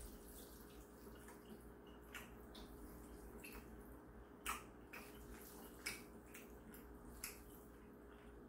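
Faint wet eating sounds of a person chewing and slurping mixed noodles: short mouth smacks, the clearest about two, four and a half, six and seven seconds in, over a low steady hum.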